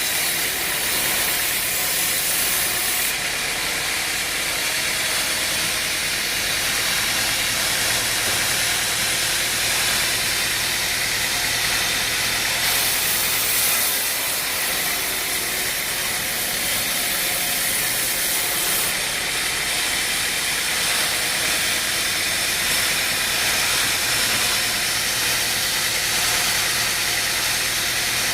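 Engine-driven wood-working machine running steadily: a constant low hum under a loud hiss that brightens for a few seconds at a time.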